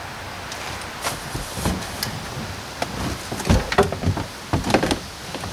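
Collapsed metal frame of a Croozer Kid for 2 stroller being loaded into a car trunk: a string of knocks, clunks and scrapes as it bumps against the trunk, coming thicker and louder in the second half.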